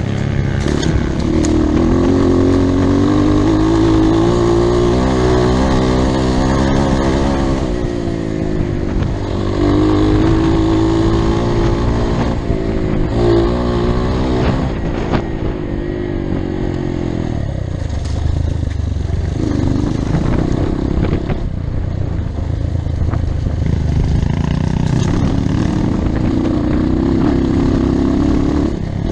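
Dirt bike engine revving up and dropping back again and again as it rides, its pitch rising and falling throughout.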